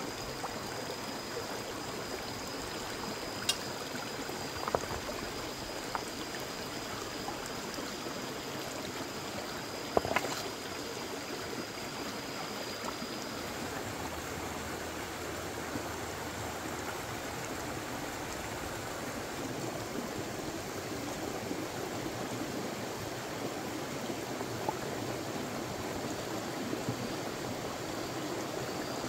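Shallow rocky stream running steadily over stones, with a few sharp knocks, the loudest about ten seconds in.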